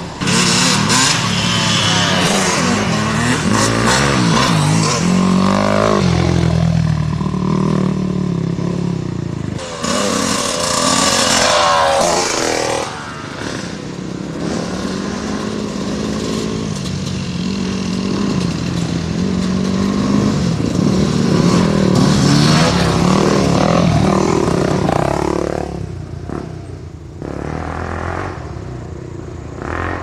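Several off-road dirt bikes riding past one after another on a dirt trail, engines revving up and down as they go by. Near the end the sound drops to a lower, steadier engine note as one bike slows and stops.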